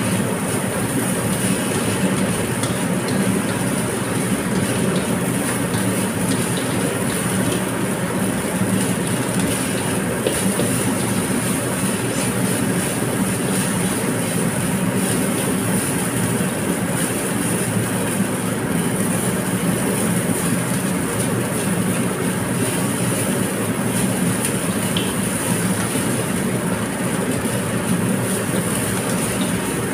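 Metal spatula scraping and clattering against a wok as fried rice is stir-fried, over a steady hiss of frying.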